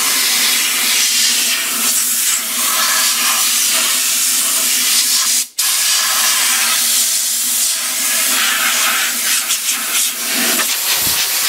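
Compressed-air blow gun hissing as it blasts sawdust out of a wood lathe's headstock, around the drive pulleys and belt. The air cuts off sharply for a moment about five and a half seconds in, then resumes.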